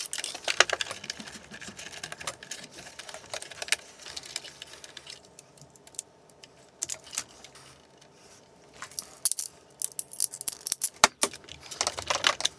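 Light clicks and small metallic rattles of hand wiring work: a crimping tool and crimp terminals being handled while wires are fitted. The sound thins out in the middle, then returns as a run of sharper clicks near the end.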